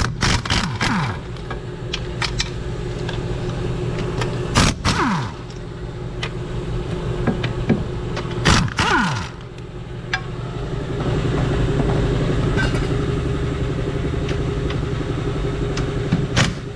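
Wrench and socket work on the rear hub's 17 mm mounting bolts: a few sharp metallic cracks and clanks, some followed by a brief falling ring. Under them runs the steady hum of an air compressor.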